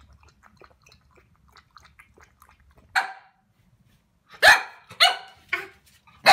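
Corgi puppy lapping faintly at a water bowl, then barking: one sharp yap about three seconds in, then a quick run of loud, short barks from about four and a half seconds on.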